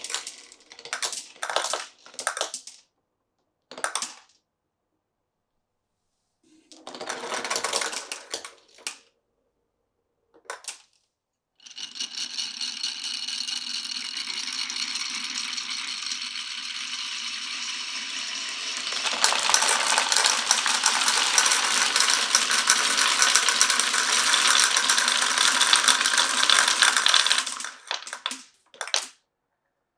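Glass marbles rolling and clattering down a wooden marble run: several short runs of clatter broken by silences, then one long continuous rolling run that gets louder a little past halfway and stops near the end, with one last short clatter.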